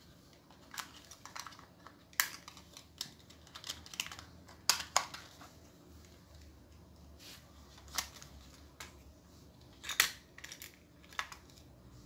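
Irregular clicks and taps from a handheld TV remote control being pressed and handled, about a dozen scattered over the stretch. The buttons are being pressed over and over because the remote isn't responding.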